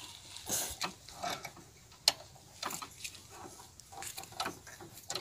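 Faint, scattered mechanical clicks and rattles from a motorcycle's levers and parts as it is handled and climbed onto.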